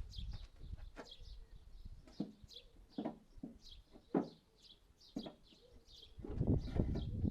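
Small birds chirping over and over in quick short calls, with several sharp knocks at irregular intervals and a low rumble building near the end.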